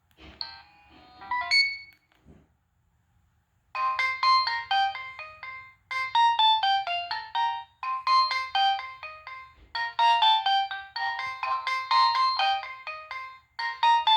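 Nokia 6015i preloaded ringtone playing: a quick electronic melody of short notes, repeating in phrases about every two seconds, starting about four seconds in. Before it comes a brief burst of electronic tones with a rising sweep, then a short pause.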